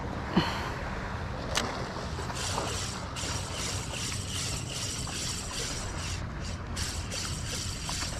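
Ryobi Ultrapower 1000 spinning reel being cranked to retrieve a lure, a fast fine ticking whirr from about two and a half seconds in, after a couple of sharp clicks in the first two seconds. Steady wind and water rumble on the microphone underneath.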